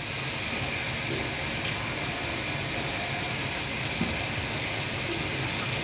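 Steady hissing background noise of the dyeing workshop with a faint low hum under it, and a single light click about four seconds in.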